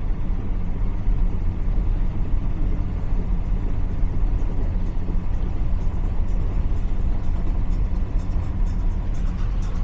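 Speedboat engine running steadily at low cruising speed: an even, deep rumble with water and wind noise over it.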